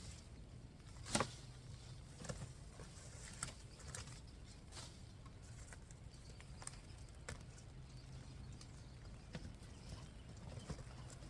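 Scattered soft knocks and rustles of soil and potatoes being dug out of a grow bag, with one louder knock about a second in.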